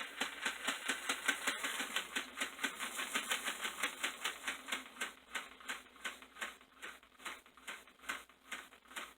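HO-scale Camelback steam locomotive model running on track without its body shell, its mechanism making a rapid, even clicking at about five clicks a second that fades toward the end. Without the shell's weight it does not move too well.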